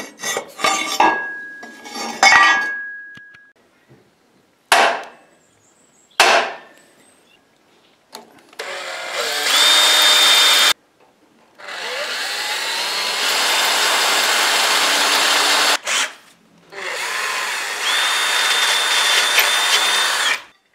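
Cordless drill boring bolt holes through steel brackets and box-iron uprights, in three long runs starting about eight, twelve and seventeen seconds in, with a thin high whine at times. Before that come a few sharp metal knocks and clinks, one of them ringing on for a couple of seconds.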